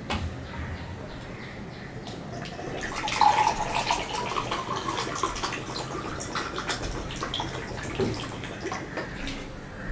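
Water poured from a plastic jug into a drinking glass, the pouring starting about three seconds in and running for a few seconds, followed by a few light knocks.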